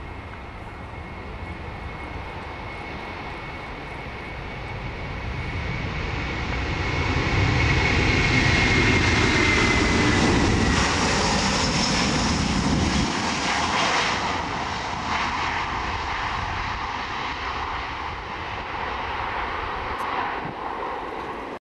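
Airbus A330 twin-engine jet on its take-off roll at full power: a steady high engine whine over a dense jet rumble and hiss. It grows to its loudest as the airliner passes, with the whine dropping in pitch, then eases off as the plane rotates and lifts away.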